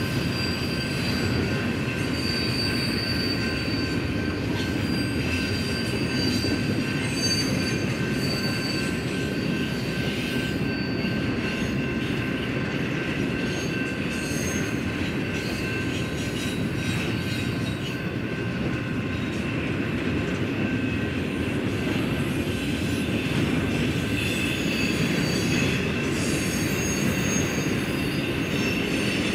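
Double-stack intermodal freight cars rolling steadily past on the rails, a continuous rumble of wheels on track with several thin, steady high squealing tones held over it.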